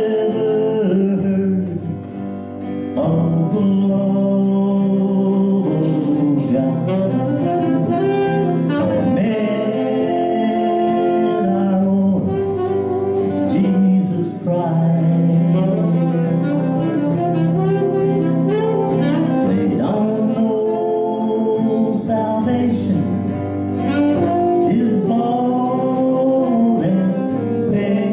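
Live gospel worship band music: electric guitar with a saxophone playing.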